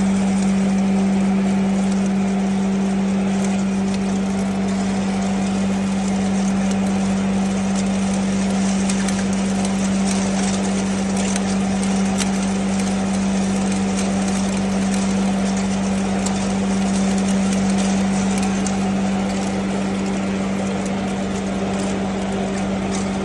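Zinc grinding machine running steadily, with an even, strong hum under a constant hiss of material being ground and small ticks.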